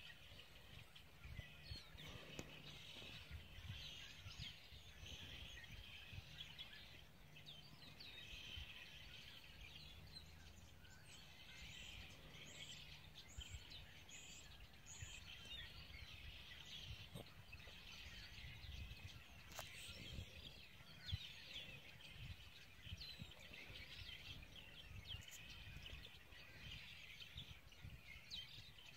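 Faint outdoor chorus of birds chirping and calling, with a run of four quick high notes about halfway through. A single sharp tap stands out about two-thirds of the way in.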